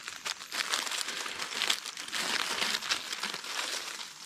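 Dry leaves and undergrowth being disturbed: a dense, continuous crackling rustle.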